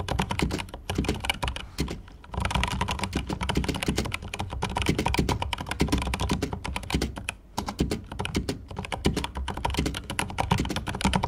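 Typing on a Razer BlackWidow V3 Pro keyboard: a dense, fast run of key clacks, smooth and not very loud, with brief pauses about two seconds in and again past the middle.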